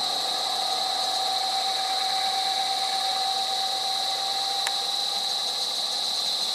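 Steady high-pitched insect drone, with a lower hum under it that fades out about five seconds in.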